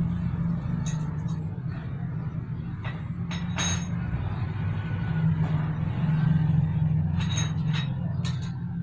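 Hand tools clinking on the hub and sprocket carrier of a spoked motorcycle rear wheel during sprocket removal: a scattering of sharp metallic clicks, the loudest about three and a half seconds in with a short ring, over a steady low hum.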